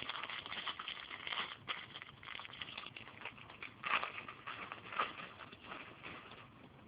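Plastic parts bags crinkling and crackling as they are handled and opened, with two sharper crackles about four and five seconds in, fading out near the end.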